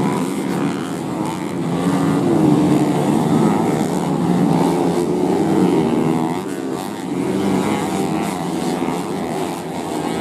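Several underbone motorcycle engines racing together, each revving up and down in pitch over the others as the bikes accelerate through the corners.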